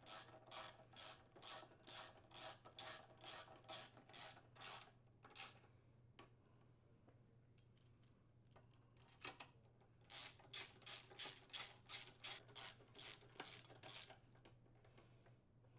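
Faint rapid clicking strokes of a hand socket ratchet driving the crankcase cover mounting screws on a Briggs & Stratton small engine, about three strokes a second. One run stops about five seconds in, and a second run starts about ten seconds in and stops near fourteen seconds.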